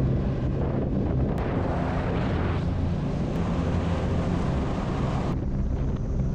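Motorcycle engine running at steady speed under way, with heavy wind noise buffeting the microphone.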